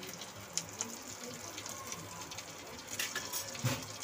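Chicken shami kebabs sizzling in shallow oil on a flat griddle (tawa), with scattered pops and crackles of the hot oil, and a knock about three and a half seconds in.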